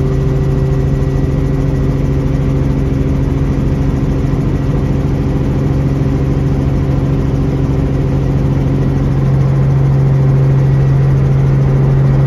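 Helicopter engine and rotor running, a steady loud drone with a strong low hum and a faint high whine, as the helicopter comes in low toward the helipad to land. About nine seconds in the tone changes and the drone gets slightly louder.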